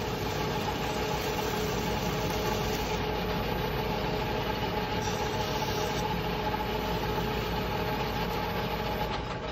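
Metal lathe running steadily with a piston spinning in its chuck: a constant motor and gear hum with a steady whine. A hand tool is held against the spinning piston crown to break the edge of the freshly cut dish.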